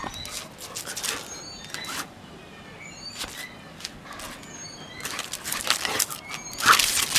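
A dog playing with a grass stalk on concrete: scattered rustles and clicks, growing into louder scuffling near the end. Faint short chirps of small birds come through now and then.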